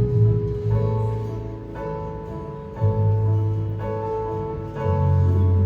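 Worship band playing an instrumental passage: sustained keyboard chords over a deep bass line, with a new chord struck about once a second.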